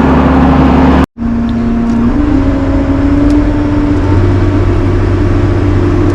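Engine of a heavy farm machine running loudly. The sound cuts off abruptly for a moment about a second in, then the engine speeds up gradually, its note slowly rising.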